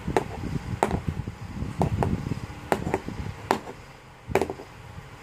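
LEGO figure and pieces being handled on a tabletop: about eight sharp plastic clicks and taps, irregularly spaced, over a low rustle of hands moving.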